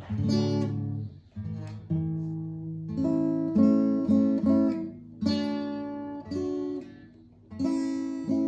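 Acoustic guitar being played: chords strummed every second or two, each left to ring and fade, with a quicker run of plucked notes in the middle.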